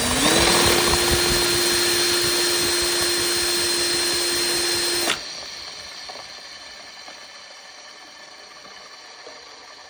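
Cordless drill spinning a 3D-printed ducted-fan rotor on its ball bearing: a steady motor whine that stops abruptly about five seconds in, leaving a faint hiss.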